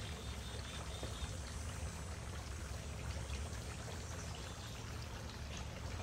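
Three-tier garden fountain running: water trickling and splashing steadily into its basins.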